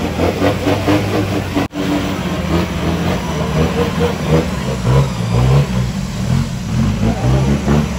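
Off-road 4x4's engine revving up and down as it works through the mud, its pitch rising and falling several times. The sound breaks off sharply for a moment just under two seconds in.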